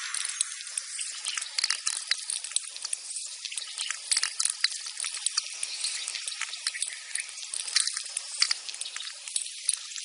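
Recording of so-called space sounds that resemble a tropical rainforest: a steady high hiss crowded with quick, irregular clicks and crackles, like dripping water.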